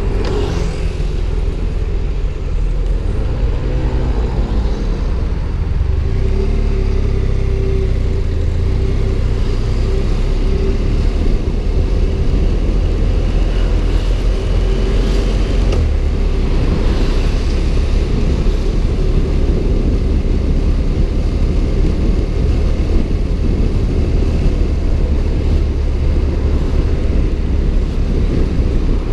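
BMW F 700 GS parallel-twin engine running as the motorcycle rides at low speed, under a heavy low rumble of wind and road noise on the bike-mounted microphone, with a steady engine note through the middle stretch.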